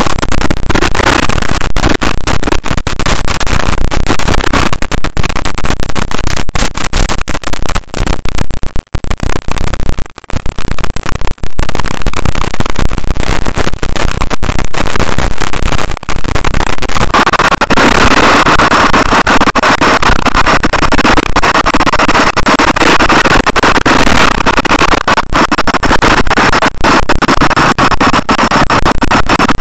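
Off-road dirt bike ridden on a dirt trail, its engine mixed with heavy wind and bump noise on the mounted camera's microphone, loud and distorted throughout, with a few brief dropouts about nine to eleven seconds in.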